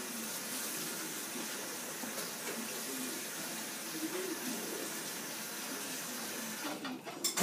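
Kitchen tap running steadily into the sink, water splashing. Near the end the running water stops and a few sharp clicks follow.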